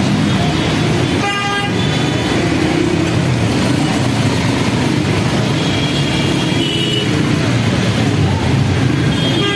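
Jammed road traffic: engines of cars, auto-rickshaws and motorcycles running, with horns honking about a second and a half in, again around six to seven seconds, and near the end.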